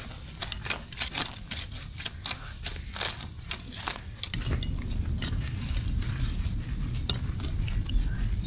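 Irregular light clicks and clinks of small hard objects knocking together, with a steady low rumble that comes in about halfway through.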